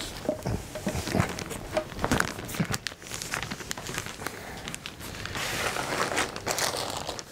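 Plastic shopping bag crinkling and rustling as it is taken down and handled, with irregular light clicks and knocks of handling.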